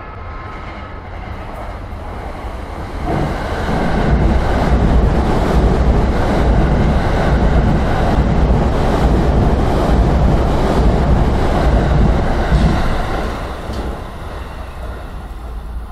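E657 series electric express train passing through a station platform at speed without stopping. The rush of wheels and air jumps up sharply about three seconds in, stays loud with repeated clacks for around ten seconds as the cars go by, then fades as the train draws away.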